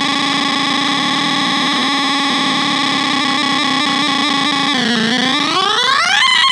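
Homemade quad-NAND-gate oscillator synthesizer played through an amplifier, with three oscillators chained so each modulates the next: a steady buzzing tone rich in overtones. About five seconds in its pitch dips, then sweeps sharply upward to a higher steady tone as a frequency knob is turned.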